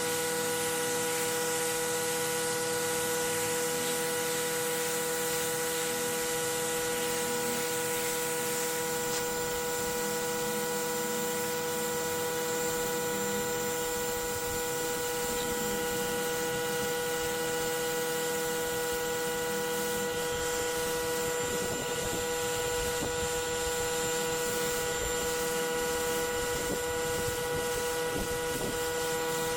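Pressure washer running steadily: a constant machine drone under the hiss of the high-pressure water spray hitting the concrete sidewalk.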